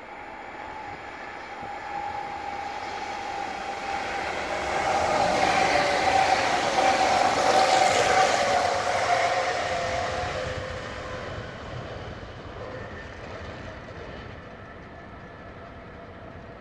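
Helsinki commuter electric multiple unit (Stadler FLIRT, class Sm5) approaching and passing at speed. The sound builds to a peak about halfway through, with a steady whine that sags slightly in pitch, then fades as the train moves away.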